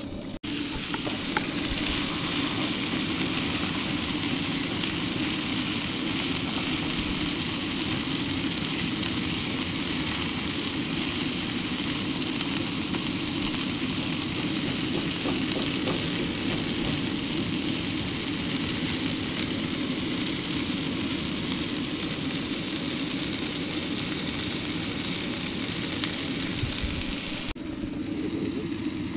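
Sausages and eggs frying on a Coleman propane griddle: steady sizzling with a constant low hum beneath it. It cuts in just after the start and cuts out shortly before the end.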